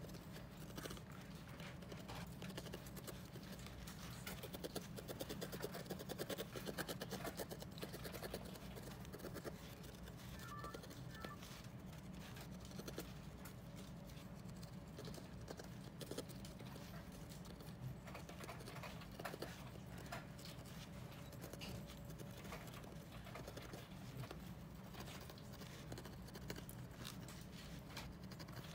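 Felting needle stabbing again and again into a wool ball against a foam pad: a faint, fast patter of small pokes and scratches, busiest about four to eight seconds in.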